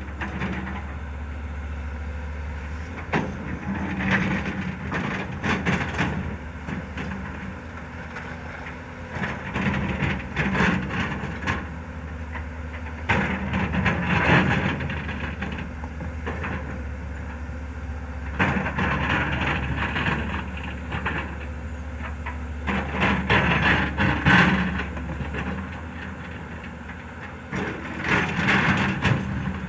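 Hyundai HX220S excavator's diesel engine running steadily, with louder bursts of engine and digging noise about every four to five seconds as the machine works through its dig-and-load cycles.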